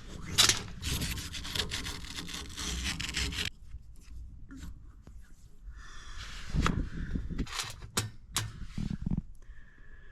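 Rubbing and scraping on the parts of a heating zone valve for about three and a half seconds, then several knocks and clunks as the small parts are handled.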